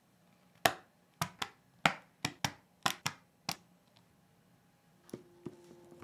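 KTT Hyacinth mechanical keyboard switches snapping one by one into a POM plate: nine sharp plastic clicks over about three seconds, unevenly spaced, often in quick pairs. Near the end two fainter clicks follow as soft music comes in.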